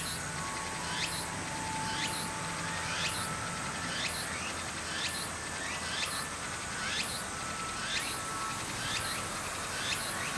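Insects chirping outdoors: a steady high trill, with short rising chirps repeating about once a second.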